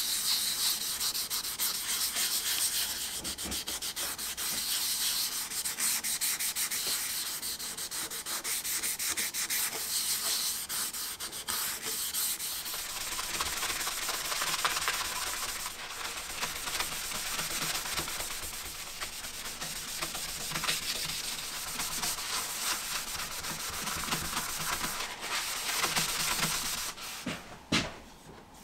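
Green scouring pad scrubbing a yellow paste finish into flat sycamore panels: a steady, rapid scratchy rubbing made of many short strokes. The rubbing stops near the end, followed by a single knock.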